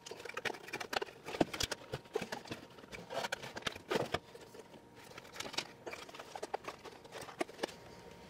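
Irregular clicks, taps and knocks of hand dryer parts being handled and worked loose during disassembly, several a second and uneven in loudness.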